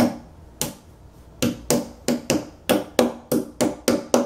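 Claw hammer driving the two nails of a bed foot into the edge of an IKEA Malm bed side panel: about a dozen sharp strikes that quicken toward the end, each leaving a brief ring in the panel.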